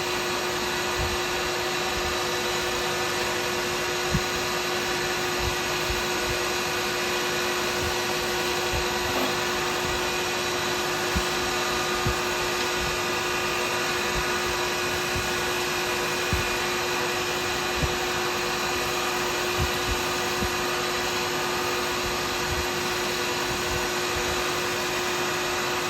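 Wood lathe running steadily while a carbide cutter takes light cuts on a cast resin-and-burr pen blank: a steady motor hum and cutting hiss with a short tick every second or two.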